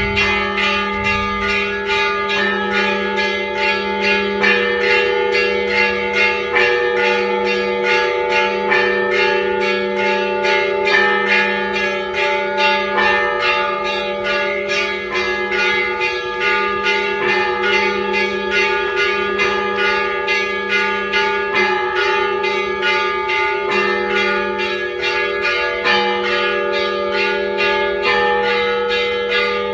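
Church bells ringing in a continuous rapid peal: many bells of different pitches struck in quick succession over the steady low hum of a larger bell.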